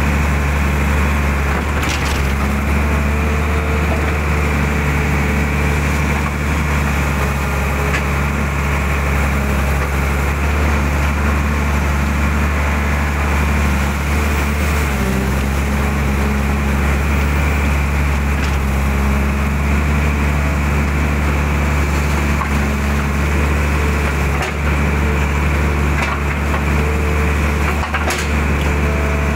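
Mitsubishi hydraulic excavator's diesel engine running steadily under working load, with the hydraulic pump's whine over it as the bucket digs mud out of a ditch. The engine note dips and shifts briefly about halfway through, and a few faint knocks come from the arm and bucket.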